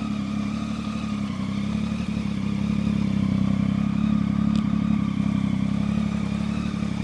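Triumph Tiger 800's three-cylinder engine idling steadily through an Arrow end can with the baffle (dB killer) removed, giving a very loud open exhaust note.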